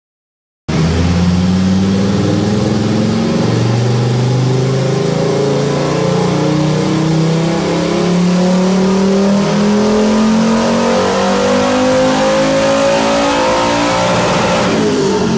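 Turbocharged 2.3-litre VR5 five-cylinder engine of a VW up making a dyno pull, its pitch climbing slowly and steadily as the revs build under load. The sound cuts in abruptly about a second in and changes sharply near the end as the run eases off.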